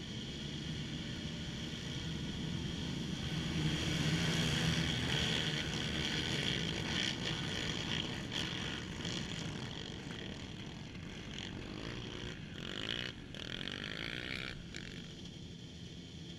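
A pack of racing ATV quad engines revving hard as they launch off the start line across the sand. The sound is loudest a few seconds in, then fades as they pull away, with a single engine rising in pitch near the end.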